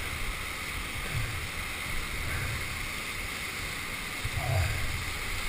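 Churning whitewater in a river hole rushing steadily, heard close up from a helmet camera in the water, with a few low thumps about four seconds in.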